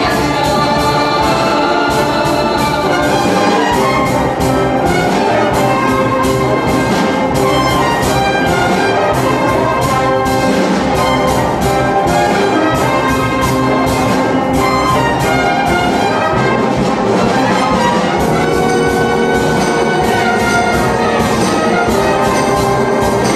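Loud orchestral music with brass over a busy, driving percussion part, steady in level throughout.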